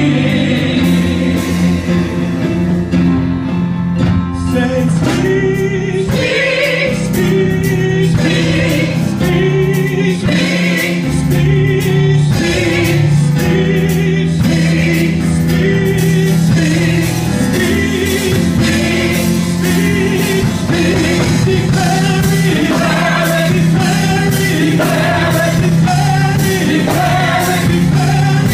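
Gospel praise-and-worship singing by a small group of men and women on microphones, backed by a live band with drums.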